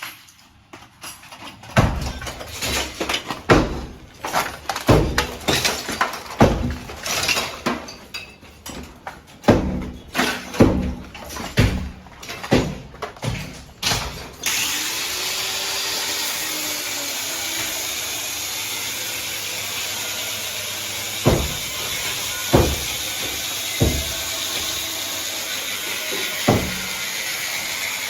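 Building work: a long run of irregular knocks and bangs, then a steady hiss with a few single knocks.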